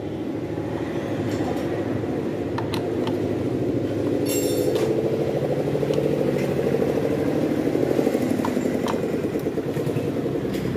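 An engine running steadily, growing a little louder in the middle. Over it come a few light metallic clicks from a socket wrench tightening the clutch pressure-plate bolts.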